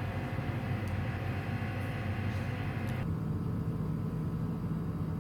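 Steady low vehicle rumble of engine and road noise, as on a moving bus or car. A higher hum over it cuts off abruptly a little over halfway through.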